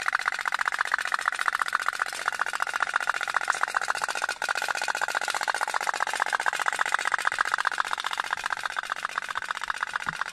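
Toy pop-pop (otok-otok) steam boat running, its candle-heated boiler giving a rapid, steady putt-putt pulsing, with a brief dropout about four seconds in.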